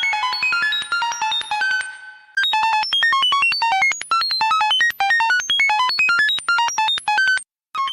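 Rapid stream of short electronic beeps, about ten a second, each jumping to a different pitch. The first run fades out about two seconds in, and a new run starts after a short gap and cuts off suddenly shortly before the end.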